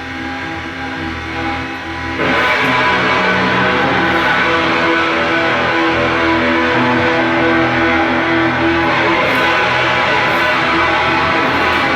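Live ambient-noise music from a full solo rig: electric guitar layered with looped synth drones and crunchy noise from a Kaoss Pad and Kaossilator, all through a 1970s 200-watt four-channel amplifier. Sustained pitched drones swell suddenly louder and denser about two seconds in, then hold as a thick, noisy wash.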